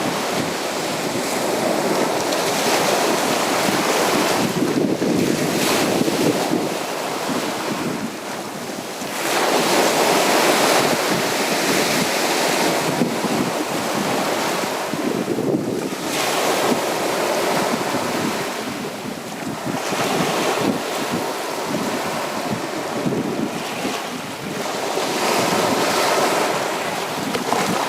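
Sea waves breaking and washing onto a beach, the surf swelling and ebbing every few seconds.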